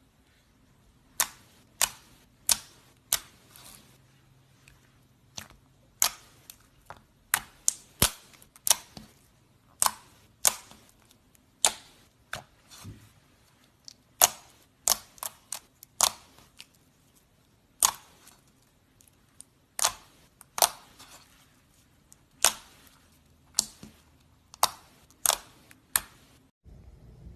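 Slime being pressed and poked, its trapped air pockets popping in sharp, irregular clicks, sometimes two or three in quick succession.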